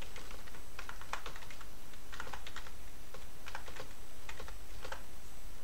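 Computer keyboard typing: a few short runs of keystroke clicks with brief pauses between them, as a terminal command is typed out.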